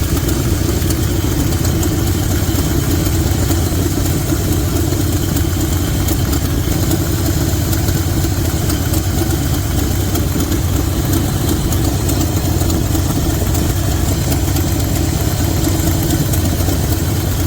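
1972 Chevy C20's big-block V8 idling steadily. It runs smoother now that the misfiring cylinder's spark plug has been cleaned and regapped to suit the HEI ignition.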